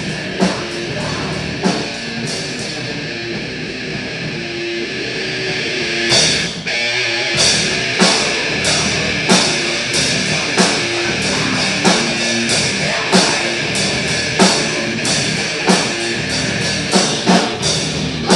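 Live rock band playing: electric guitar, bass guitar and drum kit. About six seconds in the drums grow louder, with hard drum and cymbal hits about three every two seconds.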